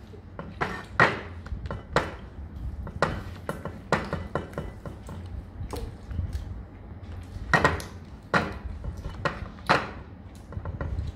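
A plate and phone being handled: scattered light clicks and knocks, a few of them louder in the second half, over a low rumble of handling noise.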